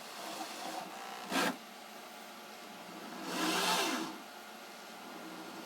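Power drill spinning a ballscrew: a short blip about a second and a half in, then a longer run of about a second whose pitch rises and falls back as the drill speeds up and slows, with no grinding. A faint steady hum underneath.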